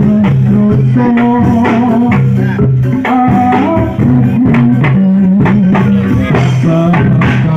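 Loud live reog and jaran dor ensemble music: sustained melodic notes over a steady beat of percussion strikes.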